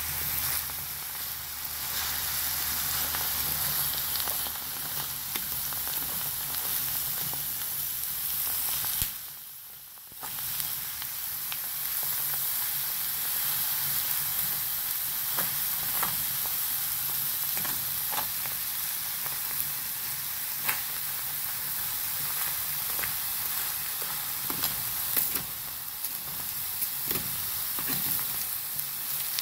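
Hydrous borax sizzling and crackling in a metal pan on the fire as its water cooks off, with scattered ticks and scrapes from a metal rod stirring it. The sound drops away for about a second, nine seconds in.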